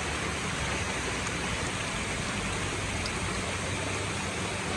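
Steady, unbroken rush of falling water from Waitonga Falls, a 39 m waterfall, mixed with the stream at its foot.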